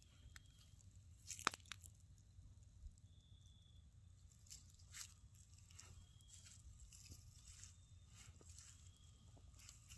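Wood campfire faintly crackling over glowing embers, with scattered sharp pops: the loudest about one and a half seconds in, another about five seconds in.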